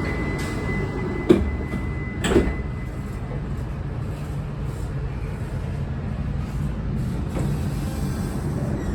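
Interior running noise of an E6-series Shinkansen: a steady low rumble of the train underway, with two sharp knocks about one and two and a half seconds in.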